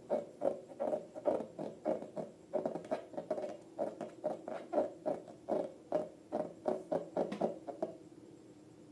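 Slime being squeezed and kneaded by hand, a soft rhythmic squishing about three times a second that stops about eight seconds in.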